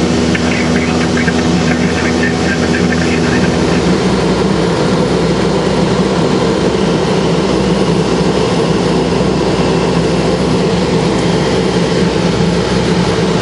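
Cessna Silver Eagle's single turboprop engine and propeller running at a steady drone, heard inside the pressurised cabin.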